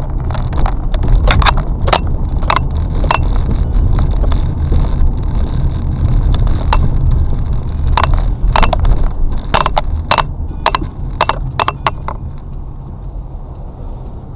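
Vehicle rumble, heard from inside, with a rapid run of sharp, irregular cracks or knocks, about twenty in twelve seconds. The cracks stop near the end and the rumble eases off.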